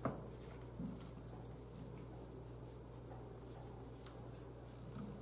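Faint soft handling of raw chicken thighs as fingers work seasoning under the skin, with a click at the start, over a low steady hum.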